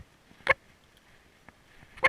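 A few short, sharp popping noises from an animal, the loudest about half a second in and a faint one near the end.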